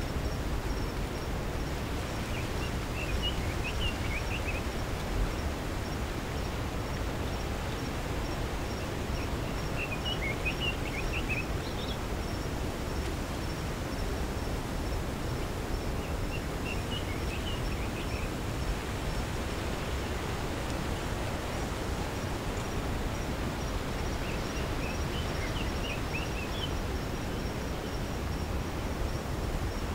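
Steady outdoor rural ambience with a low rushing background noise. A songbird gives a short phrase of quick chirps four times, about every seven seconds, over a faint high, rapid insect ticking.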